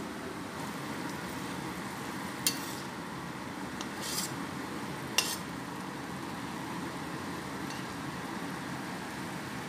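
A metal spatula stirring a simmering stir-fry of tempe, green beans and tofu in a stainless steel wok, clinking and scraping against the metal: a sharp clink, a brief scrape and another clink in the first half, over a steady cooking hiss.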